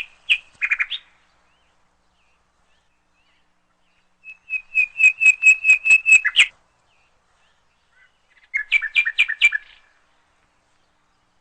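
A songbird singing three short phrases of rapid, evenly repeated whistled notes with silence between. The middle phrase is the longest and loudest: about a dozen notes ending in a down-slurred note.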